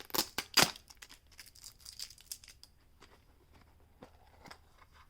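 Packaging of a set of rotary-tool bits being opened and handled: two sharp crackles in the first second, then soft scattered clicks and rustling.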